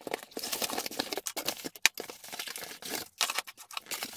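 Parcel being unpacked by hand: cardboard, bubble wrap and clear plastic parts bags rustling and crinkling, with a few sharp clicks and taps about two and three seconds in.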